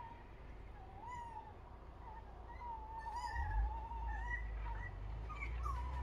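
Tawny owl hooting: a short wavering hoot about a second in, then a longer quavering hoot a few seconds later. A low rumble comes in about halfway through.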